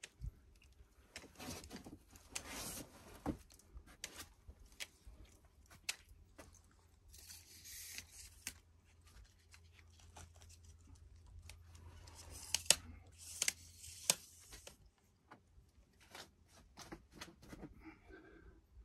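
A boulderer's hands and rubber climbing shoes scuffing, tapping and scraping on granite holds, many separate small clicks and scrapes, with two longer rasping scrapes.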